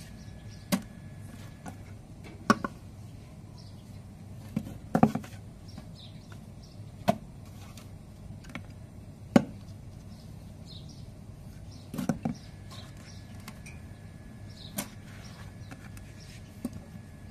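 Wooden rolling pin working flatbread dough on a floured metal tray: sharp knocks of the pin and dough against the tray every second or two, some in quick pairs. Faint bird chirps in the background.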